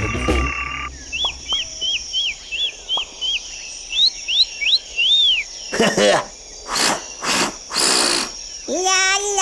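Cartoon sound effects: a quick run of short, high, falling chirps, then a few rising chirps and one arched chirp, followed by several whooshes. Near the end a voice begins a held sung note.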